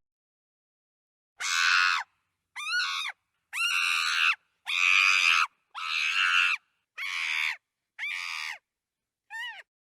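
Chimpanzee screaming: a series of eight shrill screams, each about half a second to a second long with short gaps between, starting after about a second and a half of silence, the last one short.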